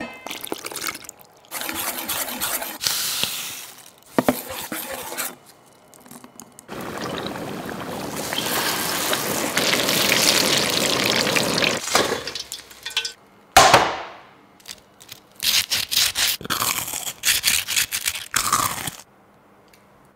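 Cooking sounds in turn: water pouring into a bowl of frying-batter flour and the batter being worked, then the steady sizzle of battered chicken wings deep-frying in a wok of hot oil. A sharp knock follows, then a run of short, crisp crackling bursts.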